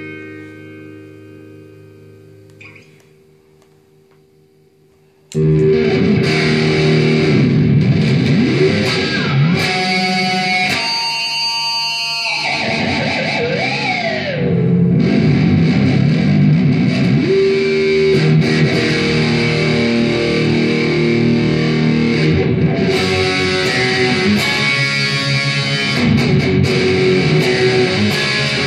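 Electric guitar, a Kramer 5150 Baretta replica played through a Marshall Valvestate VS265 amp with reverb: a chord rings out and fades over the first few seconds, then about five seconds in loud, fast riffing suddenly starts, with a few sliding pitch swoops.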